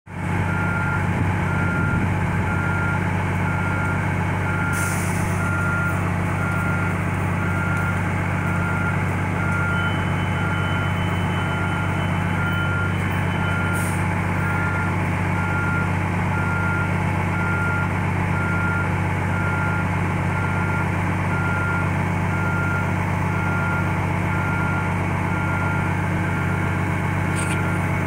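City bus engine idling steadily, with an electronic warning beep repeating at an even pace throughout. There are brief hisses a few times.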